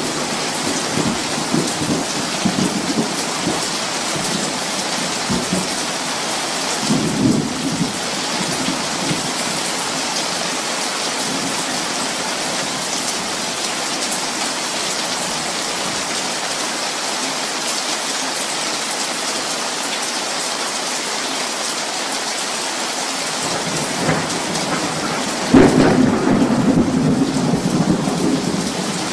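Steady rain falling, with thunder rumbling briefly at the start and again about seven seconds in. About twenty-five seconds in, a sudden loud thunderclap breaks and rolls on.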